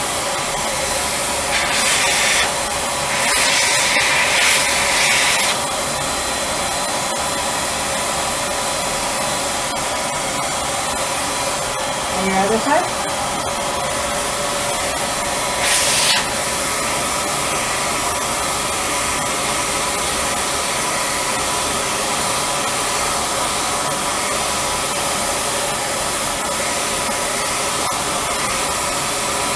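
HVLP spray-tan turbine running with a steady whir, like a hair dryer. The spray gun hisses louder in short bursts of misting: about two seconds in, from about three to five seconds, and briefly around sixteen seconds. A short rising sound is heard near the middle.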